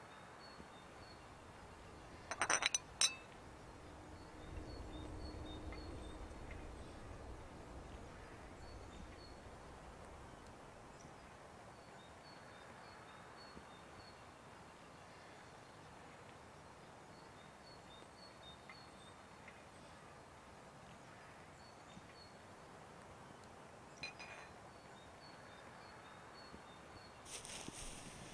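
Quiet outdoor ambience. A quick run of china clinks about two and a half seconds in, typical of a teacup knocking on its saucer, is followed by a low rumble lasting several seconds. A faint, high, repeated chirping runs underneath.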